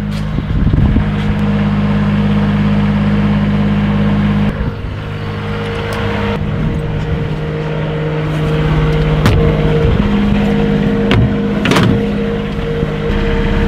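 Bobcat S70 skid steer's small diesel engine running steadily, its note shifting about four and a half seconds in, with a few sharp knocks later on.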